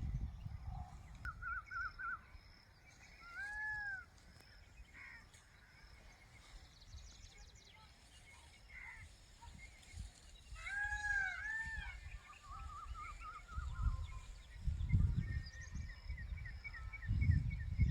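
Birds calling: short arched whistled notes, a few quick trills and a run of rapid chips near the end. Under them runs a low rumble that swells near the start and again in the last few seconds.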